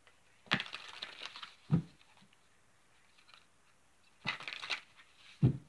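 A deck of tarot cards being shuffled by hand: two quick flurries of cards sliding and flicking from one hand onto the other, each ending in a short, low tap.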